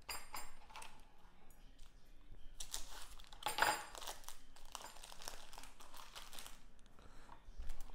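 Plastic sausage packaging crinkling and tearing as it is pulled open by hand, in irregular bursts, while the smoked sausage is worked out of the wrapper.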